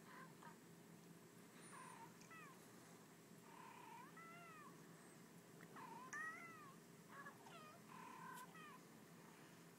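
Two or more cats meowing back and forth in a video played quietly through a laptop's speakers: about half a dozen short meows, each rising and falling in pitch.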